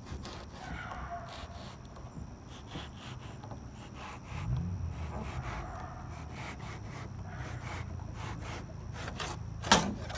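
Fillet knife scraping and sawing along a plastic cutting board as the skin is cut off a pompano fillet, in many short uneven strokes. A low steady hum comes in about halfway, and there is a sharp knock near the end.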